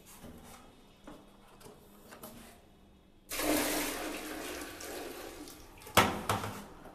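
Water poured from a plastic bucket into a toilet bowl, gushing and splashing for about three seconds, starting a little over three seconds in; this is water run through a newly set one-piece toilet to check its outlet seal for leaks. A sharp knock follows as the pouring ends.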